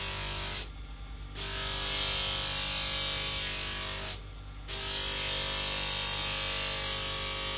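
Electric grinding wheel running with a steady hum while the edge of a ceramic plate is ground against it, giving a hiss that stops briefly twice, about a second in and again around four and a half seconds in.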